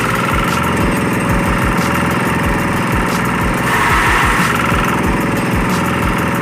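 Kubota 12.5 hp single-cylinder diesel engine running steadily at working speed, driving a forage chopper. A rushing noise swells briefly about four seconds in.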